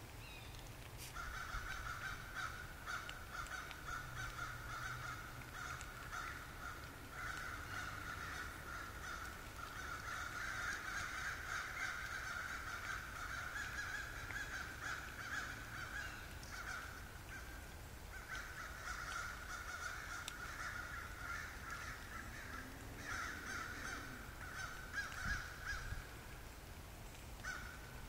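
A chorus of many crows cawing at once, their calls overlapping into a near-continuous din with a few brief lulls.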